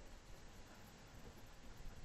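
Near silence: faint, even background hiss of the recording.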